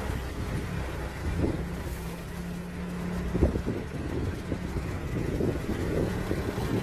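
A vehicle's engine running as it drives along a street, with road noise and wind buffeting the microphone.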